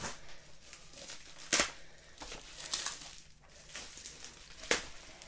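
Plastic bubble-wrap packaging crinkling and tearing as it is cut open with a serrated knife, with a few sharp crackles, the loudest about one and a half seconds in.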